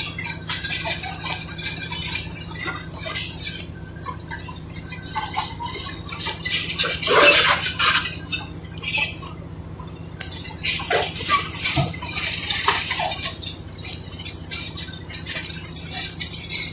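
Large Caterpillar crawler bulldozer's diesel engine running steadily under the irregular clank and rattle of its steel tracks and the scrape of broken concrete pushed by the blade. The scraping is loudest about seven seconds in.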